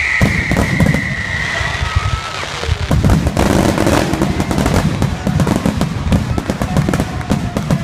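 Fireworks going off: a high whistle that sinks slightly in pitch and fades out about two seconds in, then a dense, rapid crackle of many small pops.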